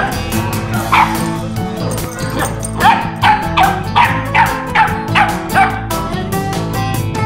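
A puppy yapping in play at a bigger dog: one sharp, high bark about a second in, then a quick run of about eight, roughly three a second, over background music.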